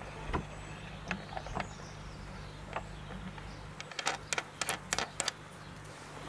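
A 1937 Petter M type two-stroke stationary engine running with a steady low beat and then slowing as it is shut down. A quick run of sharp clicks comes about four to five seconds in.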